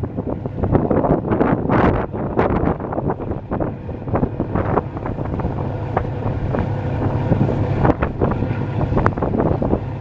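Wind buffeting the microphone on the deck of a moving passenger boat, crackling in gusts, over the steady low hum of the boat's engine.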